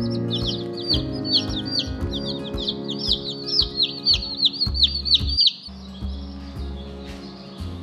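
Baby chicks peeping, a rapid overlapping run of short, high, falling peeps that stops about five and a half seconds in.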